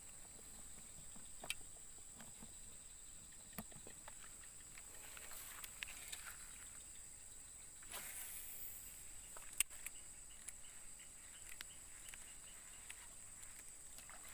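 Faint outdoor night ambience: a steady high-pitched insect trill, with a few scattered small clicks and rustles.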